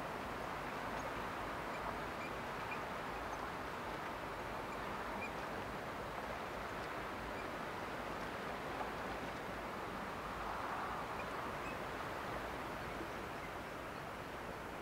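Steady outdoor background noise, an even rushing hiss that swells slightly about ten seconds in, with faint scattered high chirps.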